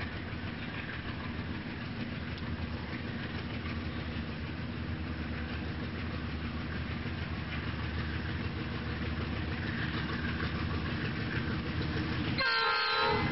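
Norfolk Southern diesel freight locomotives approaching, a steady low engine and wheel rumble that grows slowly louder. Near the end, a short blast of the locomotive's multi-note air horn.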